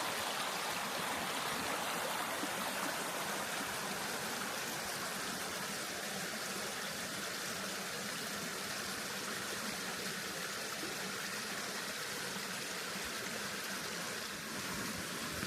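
Small mountain stream flowing, a steady rush of running water.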